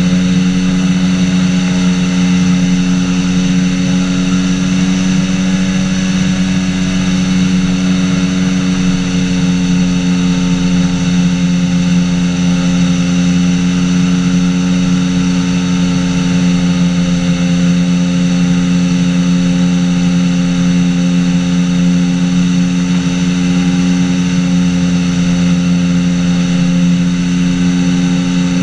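Engine and pusher propeller of a Polaris flying inflatable boat running at steady cruise power in flight, a constant drone that holds one even pitch.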